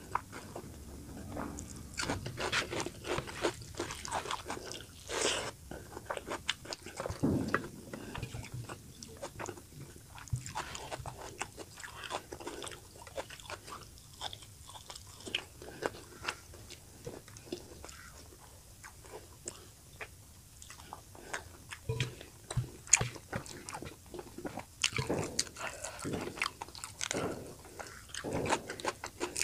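Close-up, irregular crunching and chewing of mouthfuls of fish curry with steamed rice and raw onion, eaten by hand. The sounds thin out for a while in the middle and pick up again near the end.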